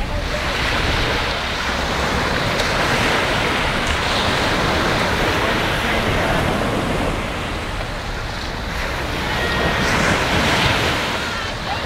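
Sea water washing in the shallows and wind buffeting the microphone: a steady rushing noise that eases off a little around eight seconds in and swells again near ten seconds.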